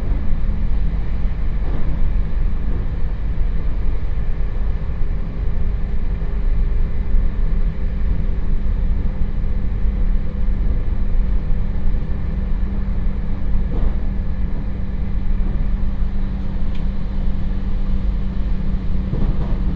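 A JR Hokkaido 721 series electric multiple unit motor car (KuMoHa 721), heard inside the passenger cabin, coasting with traction power off. Wheels run on the rails with a steady rumble and a steady low hum.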